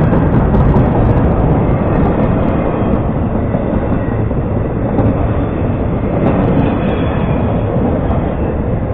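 Empty intermodal well cars of a freight train rolling past close by: a steady rumble of steel wheels on rail, slowly getting quieter.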